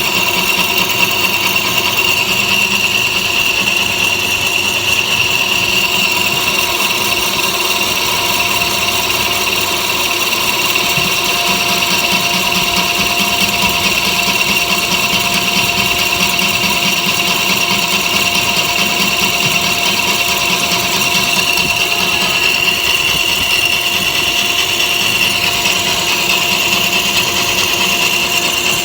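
Metal lathe running steadily: an even whine made of several held tones over a hiss.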